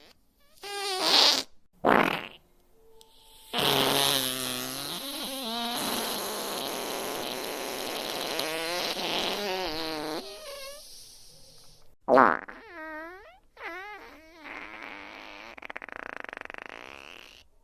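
A series of fart sound effects, one after another: two short ones, then a long drawn-out one of about seven seconds with a wavering pitch, then several more short ones.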